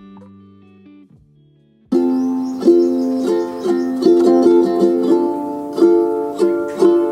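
Background music: a soft, sustained tune fades away, then about two seconds in a loud, bright plucked-string tune begins abruptly with a steady run of notes.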